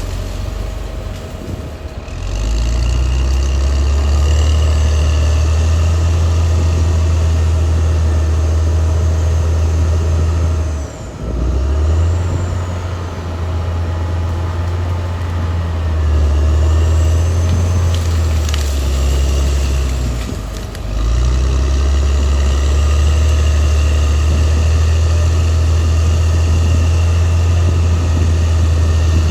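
Caterpillar D6R XL bulldozer's diesel engine running loud and steady under work. It dips briefly twice, about ten seconds in and again about twenty seconds in, with a fainter high whine above the rumble.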